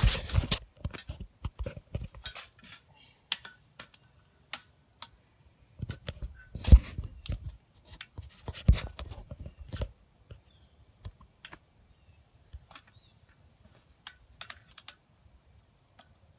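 Irregular clicks and taps of a wire cage trap being poked and pried at with a stick and a pole to get its door open, with two louder knocks about seven and nine seconds in. The tapping thins out over the last several seconds.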